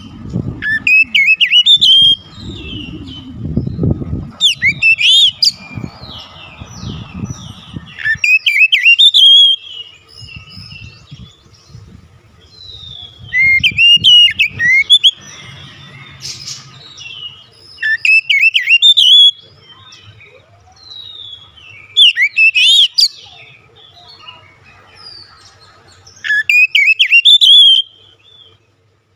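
Oriental magpie-robin singing in loud bursts of rapid, gliding whistled phrases, each a second or two long and coming about every four seconds. Softer chirps fill the gaps between bursts. The bird is in full song, running through its varied repertoire.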